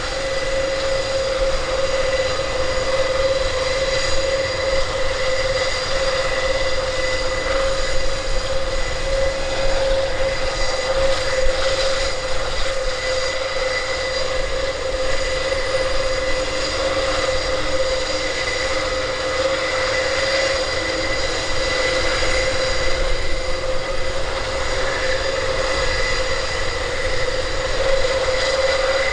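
Airbus A400M's Europrop TP400 turboprop engines running on the ground during start-up: a steady high whine over an even rumble, holding constant throughout.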